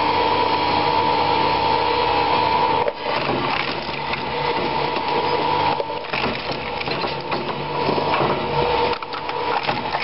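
QS15WL twin-shaft shredder running with a steady whine from its drive, then, from about three seconds in, its hook cutters crunch and crack through hard drives. The whine drops away while the cutters bite, twice.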